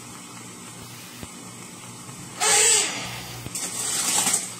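Cubed chicken with butter and onion frying in a pan, a steady low sizzle. About two and a half seconds in comes a brief, loud rush of noise, and near the end a longer, softer noisy stretch.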